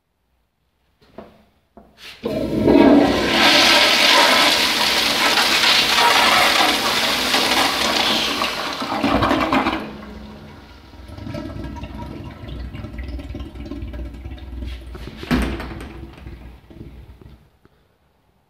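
Vintage 1970s Kohler floor-mount toilet flushing. A couple of faint clicks, then a loud rush of water through the bowl for about eight seconds. It eases to a quieter refill, with one brief louder surge near the end, and stops shortly after.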